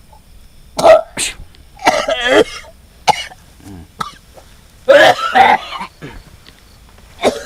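A person coughing and clearing their throat hard in about five separate bouts, with short pauses between them.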